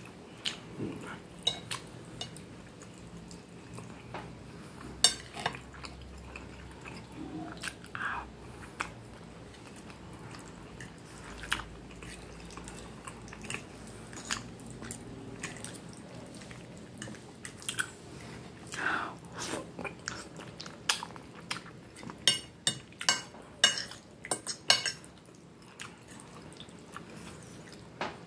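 Eating sounds: chewing of pasta and meatballs in tomato sauce, with a knife and fork clicking and scraping on a plate. A quick run of sharp clicks comes about three-quarters of the way through.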